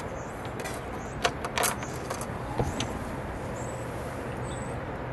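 A few light knocks and a short scrape as a solar panel's frame is handled onto an aluminium roof-mount rail, over a steady low background hum.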